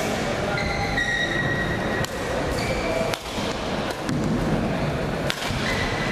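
Badminton rally: several sharp cracks of rackets striking the shuttlecock, roughly a second apart, with short high squeaks of court shoes on the floor, over steady crowd chatter in a large hall.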